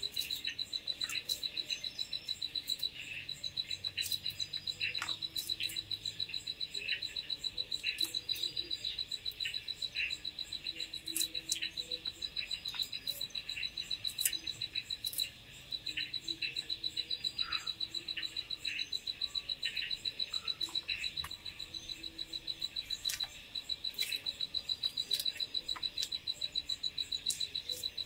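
Night insects keep up a steady, rapid, high-pitched trill that breaks off briefly a few times. Scattered sharp taps come from a curved knife slicing green chillies against a wooden log.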